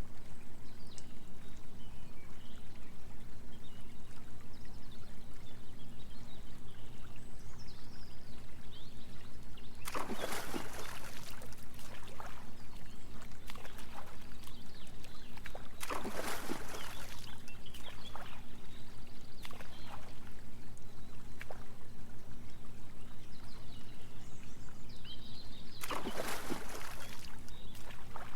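Small waterfall trickling steadily over a low, rapidly pulsing drone of binaural beats. Three splashes in a pond break through, about ten seconds in, about sixteen seconds in, and near the end.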